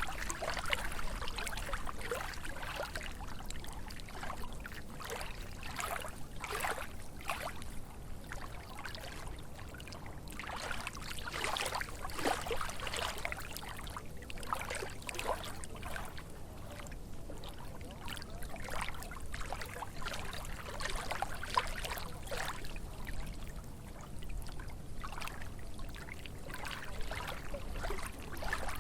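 Small, calm lake waves lapping in irregular little splashes every second or so, over a low steady rumble.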